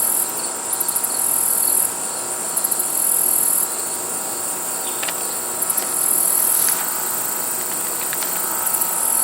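A high-pitched insect call repeating in a regular pattern: a few quick pulses, then a sustained buzz of about a second, roughly every two and a half seconds.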